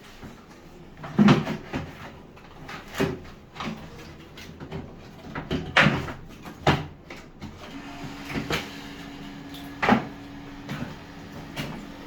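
Irregular knocks and clacks a second or more apart, the loudest about a second in, near six seconds and near ten seconds. A steady low hum comes in about eight seconds in.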